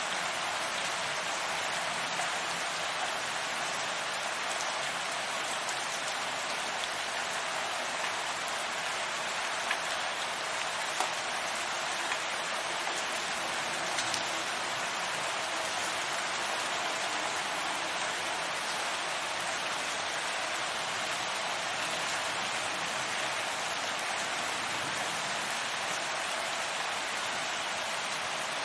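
Steady rain falling, an even hiss with a few individual drops ticking.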